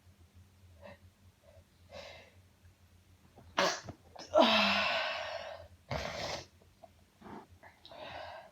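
A woman in a sneezing fit: a few short catching breaths, then three sneezes in quick succession about three and a half seconds in, the middle one long and drawn out with a falling vocal tail. Short breaths follow.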